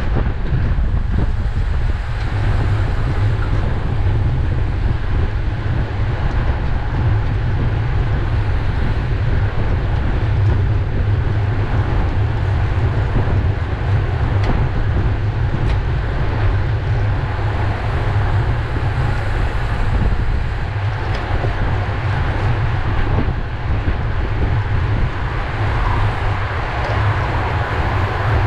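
Heavy wind buffeting on a bicycle-mounted camera's microphone while riding, over a steady rush of tyre and road noise.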